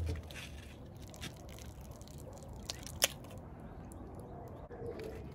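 Aluminium drink can being handled and drunk from: faint drips and small clicks, with one sharp click about three seconds in.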